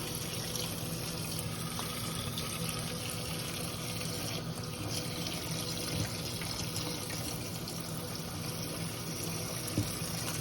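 Kitchen tap running steadily into the sink, cold water filling up to soak broccoli.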